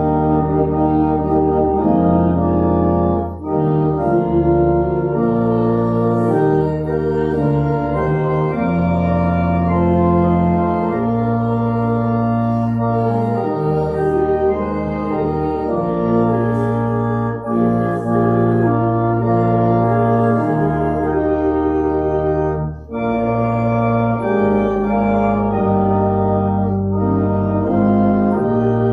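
Church organ playing a slow piece in held chords that change every second or two, with a few short breaks between phrases.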